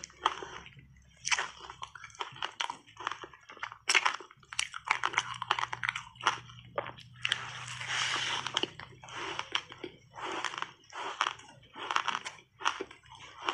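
Passionfruit block ice coated in matcha powder being bitten and chewed, a steady run of sharp crunches with a longer stretch of dense crunching about seven seconds in.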